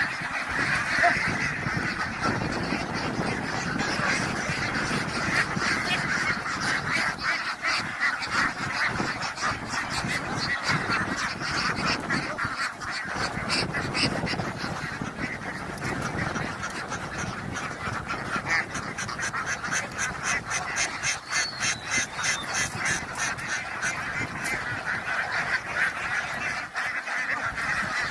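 A large flock of ducks quacking continuously, many calls overlapping without a break.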